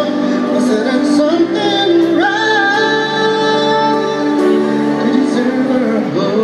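A man singing a ballad into a hand-held microphone over a karaoke backing track, holding one long note about two seconds in.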